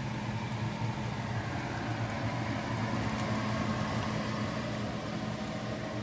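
A low steady hum over an even hiss, with venison and okra frying in hot oil and sizzling steadily.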